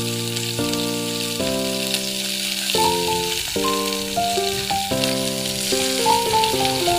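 Sliced onion and green chillies sizzling in hot oil in a pot: a steady frying hiss. Background music with changing notes plays over it.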